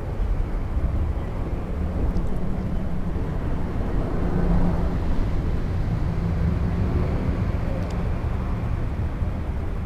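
Steady low rumble of city traffic, swelling a little about halfway through.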